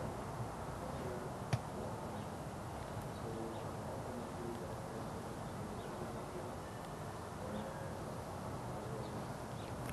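Steady outdoor background noise with faint short tones scattered through it and a single click about one and a half seconds in.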